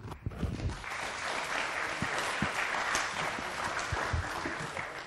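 Conference audience applauding: many hands clapping, building up over the first second and then holding steady.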